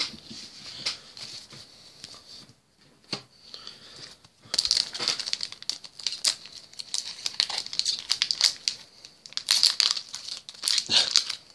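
Foil wrapper of a Battle Spirits trading-card booster pack crinkling and tearing as it is worked open by hand. It is quiet for the first few seconds, then dense crackling from about four and a half seconds in.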